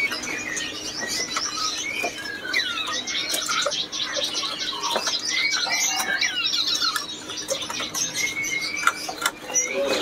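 Many caged songbirds chirping, whistling and calling over one another, with scattered sharp clicks among them.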